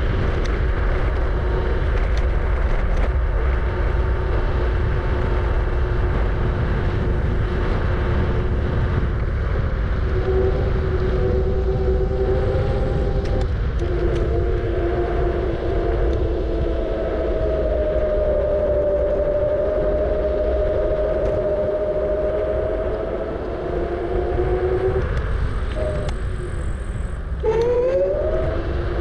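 Kugoo G-Booster electric scooter's hub motor whining while riding, over heavy wind rumble on the microphone. The whine's pitch shifts with speed, drops out briefly a few seconds before the end, then rises again.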